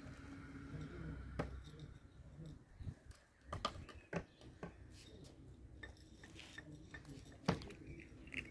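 Kittens crunching dry cat kibble from plates, a faint scatter of sharp crunches and clicks with the loudest about seven and a half seconds in.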